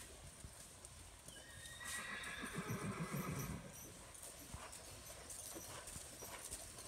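A horse whinnies once, starting about a second and a half in and lasting about two seconds, over the soft hoofbeats of a horse cantering on dirt arena footing.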